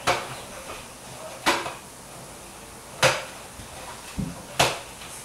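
Hand-held can opener being worked on a metal tomato can: four sharp metallic clanks about a second and a half apart, with a weaker knock just before the last.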